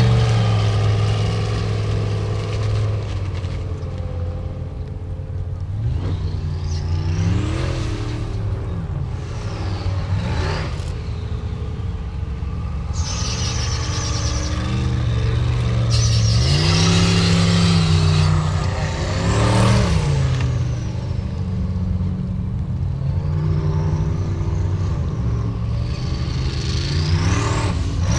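Formula Offroad buggy's turbocharged engine revving hard and backing off again and again under load on steep dirt climbs. A high turbo whistle rises and falls with the revs.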